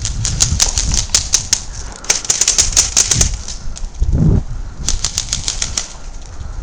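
Airsoft guns firing in quick strings of sharp snapping clicks, about five or six shots a second, in three bursts with short gaps between them. A brief low rumble sits between the second and third bursts, over steady low rumbling.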